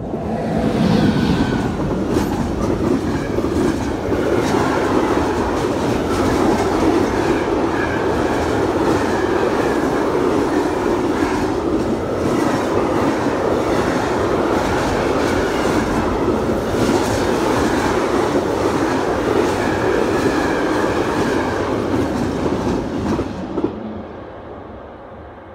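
Electric-hauled container freight train passing close by: the locomotive, then a long string of container flat wagons with their wheels running and clicking over the rails. The sound swells within the first second, holds steady, and fades out as the last wagon passes, about two seconds before the end.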